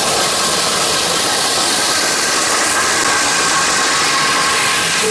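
HMC 500 electric core drill boring a 500 mm hole in concrete under load: a steady, even rushing noise with a faint steady motor whine.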